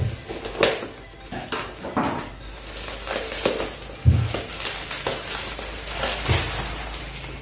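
Plastic bubble wrap crinkling and crackling as a taped parcel is cut with scissors and torn open by hand, with a few dull thumps as the package is handled.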